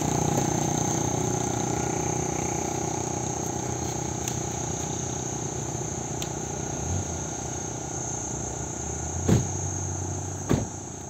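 Insects calling in one steady, high-pitched, continuous drone over a low background rumble, with two brief thumps near the end.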